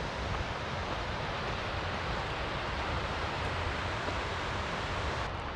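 Wind on the microphone: a steady rushing noise with uneven low rumbling buffets.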